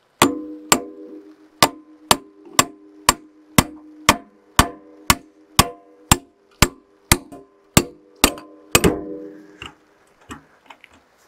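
Steel-on-steel hammer blows driving the pivot pin out of a Hitachi excavator's stick cylinder: about seventeen strikes, roughly two a second, each ringing briefly with a metallic tone. They stop about nine seconds in.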